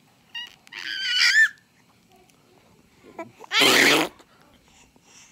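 A baby's high, wavering giggle about a second in, then a loud raspberry blown, a spluttering burst, about three and a half seconds in.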